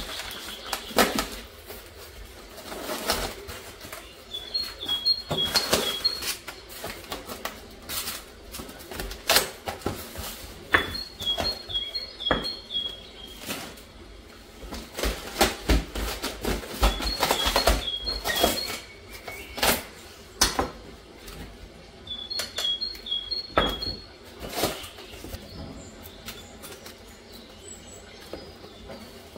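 Hard objects knocking and clinking as they are handled, with a few duller thumps in the middle. A short, high chirping phrase of quick stepped notes repeats four times, about six seconds apart.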